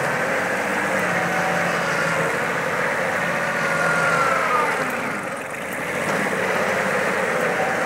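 Kubota B1600 compact tractor's diesel engine running steadily under load, driving its rotary tiller through the soil; the loudness dips briefly about five seconds in.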